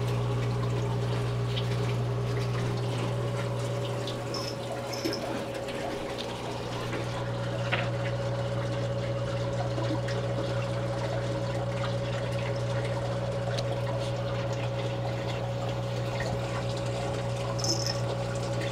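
Saltwater reef aquarium's water pump running with a steady hum, with water trickling and pouring in the tank's circulation.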